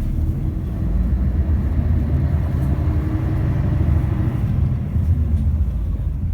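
Toei city bus driving, heard from inside the passenger cabin: a steady low rumble of engine and road noise.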